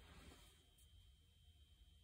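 Near silence: room tone with a faint steady high whine and low hum, and a faint brief rustle in the first half second.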